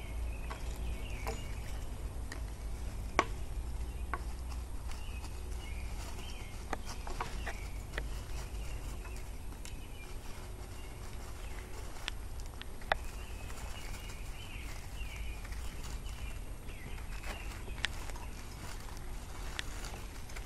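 Seven-week-old Labrador puppies playing on wood chips: paws scuffling and rustling, with scattered sharp clicks and knocks as they tug and bat at hanging plastic toys and chains, over a low steady rumble.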